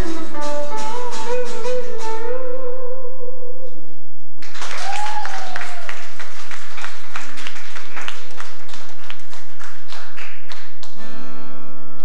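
Music: an acoustic guitar being strummed in a steady rhythm, with a voice holding sung notes near the start.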